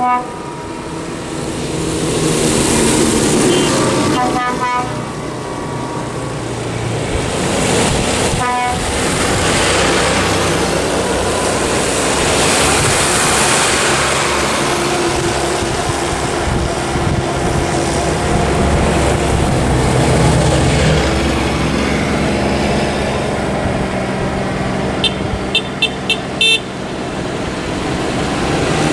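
Diesel tractors driving past one after another, their engines rising and falling as each goes by, with horn blasts about four and eight seconds in and a quick run of about five short honks near the end.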